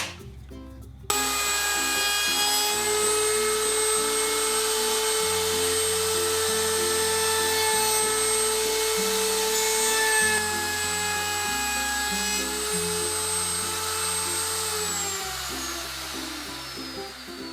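Electric router switched on about a second in and running at a steady high whine, then switched off and spinning down with a falling pitch near the end. Background music with a steady bass line plays underneath.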